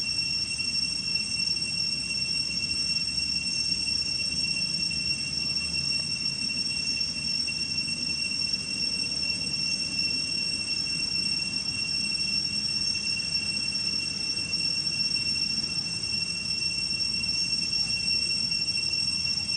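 A steady high-pitched whine at one unchanging pitch, over a low rumbling background noise.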